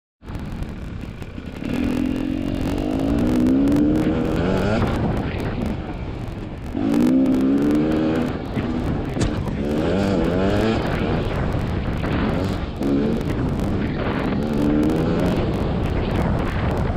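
GasGas two-stroke dirt bike engine pulling along the trail, its pitch climbing and dropping back about five times as the throttle is opened and the gears or revs change.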